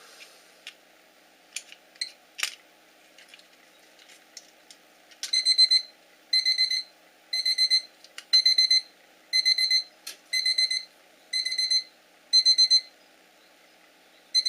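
The alarm buzzer of a cheap Chinese alarm clock, rewired as a homemade fishing bite alarm, sounding its alarm: bursts of a few quick high beeps about once a second, starting about five seconds in after a few light handling clicks. The beeping means the bite contact has closed and the alarm is signalling a bite on test.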